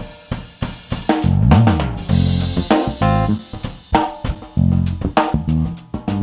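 Channel intro music: a rhythmic piece led by a drum kit, with snare, cymbal and hi-hat hits over a pitched bass line and chords.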